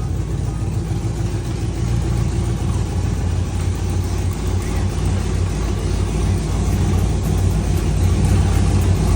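GMC Sierra pickup's engine running steadily, getting slightly louder toward the end.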